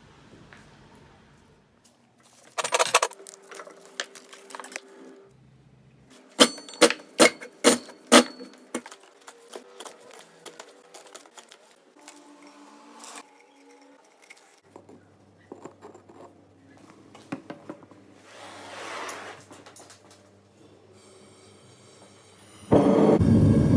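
Metal handling noises: a clatter, then a quick run of about six sharp knocks and scattered taps. Near the end a gas furnace burner comes on with a loud, steady rushing roar.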